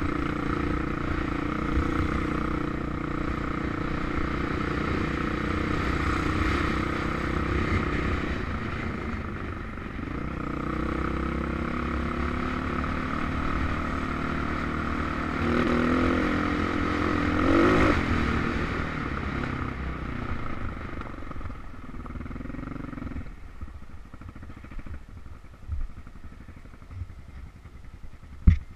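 Husqvarna SM610S single-cylinder motorcycle engine running under way on a gravel track, with rumble and clatter from the ride. The engine rises in pitch a little past halfway, then drops away about three quarters of the way in, leaving quieter rumble and a few sharp knocks near the end.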